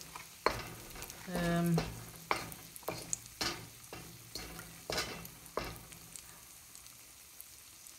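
Wooden spoon stirring and scraping fried Chinese yam pieces in a wok, knocking against the pan several times, over light sizzling of hot oil and sugar sauce. The knocks thin out over the last two seconds.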